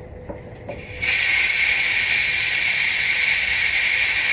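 Steam hissing steadily out of the release valve of a Dessini electric pressure cooker, starting abruptly about a second in as the valve is pushed open with a wooden spoon: a manual pressure release at the end of cooking.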